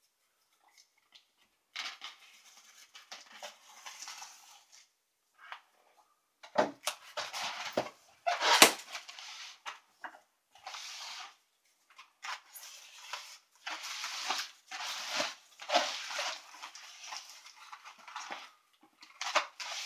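A folding knife cutting and scraping along the packing tape and cardboard of a long box, with the box being rustled and handled in short bursts; one sharp knock a little before the middle is the loudest sound.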